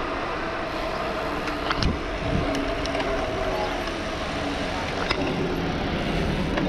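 Steady wind rush on the microphone of a handlebar-mounted camera on a moving bicycle, with tyre and road hiss and a few small clicks from the bike.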